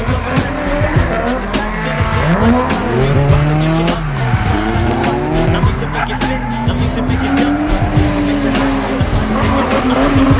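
Drift cars' engines revving up and down as they slide through a corner, with tyres squealing on the wet track. A car passes close by near the end.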